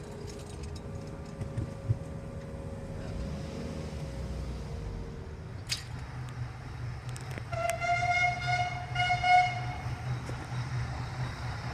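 A whistle gives one steady blast of about two seconds, starting nearly eight seconds in, most likely a steam roller's steam whistle. Before it, steady humming tones fade out about five seconds in.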